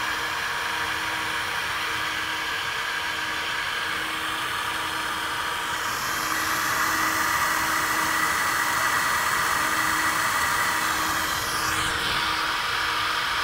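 SuperFlow SF-1020 flow bench running, its big commercial fans pulling air through the exhaust port of a 12-valve Cummins cylinder head: a noisy, steady rush of air with a few steady hums. It grows louder and brighter about six seconds in as the measured flow climbs toward 184 CFM, and a brief swoop in pitch comes near the end.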